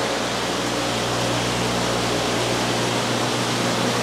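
Steady rushing noise with a low, even hum underneath: the running pumps, filtration and aeration of a fish room full of aquariums.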